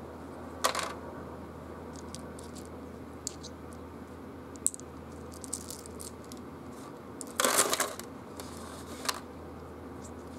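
Small plastic betting tokens and game-piece discs clicking against each other in the hand and clattering into the box's tray: a sharp click about half a second in, scattered light clicks, and a longer clatter a little past seven seconds in.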